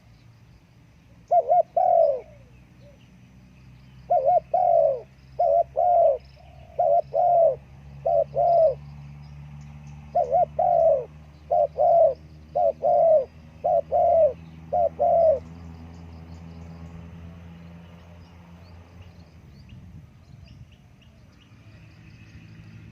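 Spotted dove (terkukur) cooing: a short two-note phrase, then two longer runs of repeated coos, stopping about 15 seconds in. A steady low hum runs underneath.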